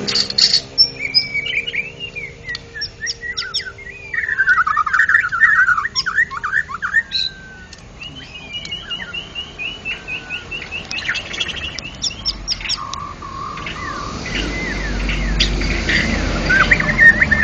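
White-rumped shama (murai batu) singing loudly and continuously: a varied song of clear whistles, rapid trilled runs and a quick series of repeated notes, with short pauses between phrases.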